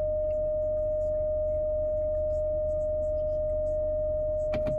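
Chrysler Pacifica's parking-sensor alarm sounding one steady, unbroken tone, the warning that an obstacle is very close; a couple of sharp clicks near the end.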